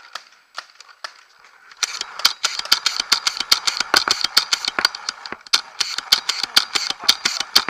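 Paintball marker firing rapid bursts, about five sharp shots a second, starting about two seconds in, over a steady mechanical whir.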